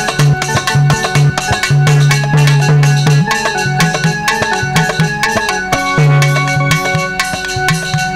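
Instrumental break in Indian folk dance music: an electronic keyboard melody over a fast, steady hand-drum beat with a recurring deep bass note, played loud.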